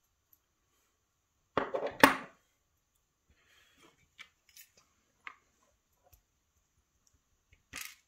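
Lock cylinder parts being taken apart by hand: a short metal clatter and scrape about a second and a half in, then a few light clicks as small pins are handled and set down in a plastic pin tray.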